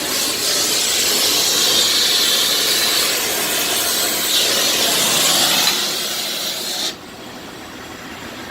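A loud, steady hiss of rushing gas or air that drops off abruptly about seven seconds in to a much quieter background.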